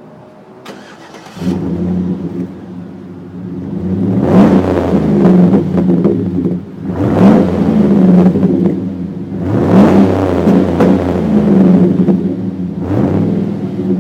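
A 2010 GMC Sierra's 6.2 L V8 fitted with a Borla dual cat-back exhaust starts about a second and a half in and settles to a loud idle. It is then revved about four times, each rev rising and falling back to idle.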